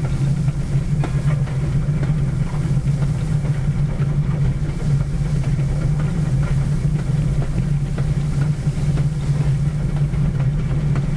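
Pere Marquette 1225, a Lima-built 2-8-4 Berkshire steam locomotive, running along the track, heard from its front: a steady low rumble with a few faint clicks.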